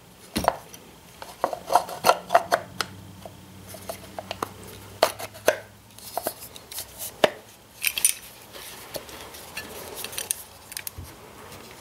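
Irregular sharp clicks and clinks of small metal parts being handled and fitted by hand on a Ford 2N front-mount distributor, as its cap and fittings are worked into place.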